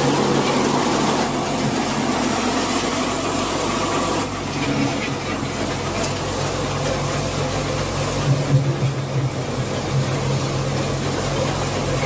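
Tractor diesel engine running steadily under load as it drives a front-mounted reaper cutting standing wheat, with a brief louder patch about two thirds of the way through.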